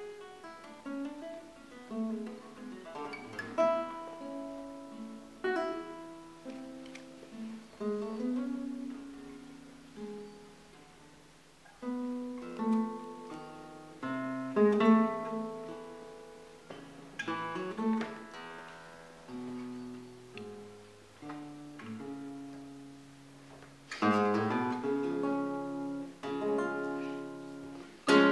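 Solo classical guitar playing a slow, lyrical passage: single plucked melody notes over bass notes, phrase by phrase, each note ringing and fading. Near the end the playing thickens into quicker, louder chords.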